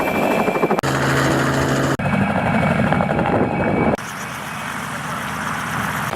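Helicopter rotor and engine running, with a fast rotor chop, heard across several short shots that cut abruptly about a second, two seconds and four seconds in; quieter after the last cut.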